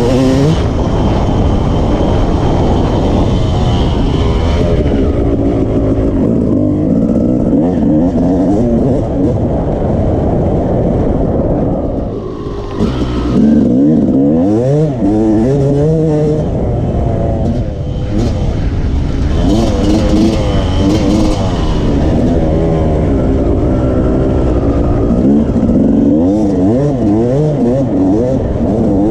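Yamaha YZ250 two-stroke dirt bike engine being ridden off-road, its revs rising and falling with the throttle. It eases off briefly about twelve seconds in, then pulls hard again.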